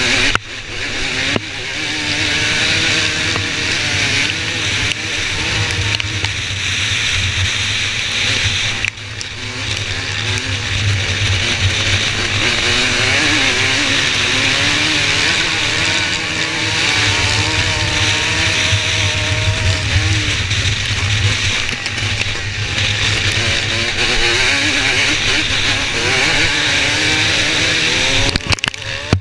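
Off-road race motorcycle engine at racing speed on a grass track, its pitch rising and falling with the throttle and gear changes, with brief sharp drops about a second in and again about nine seconds in. Other race bikes' engines are mixed in.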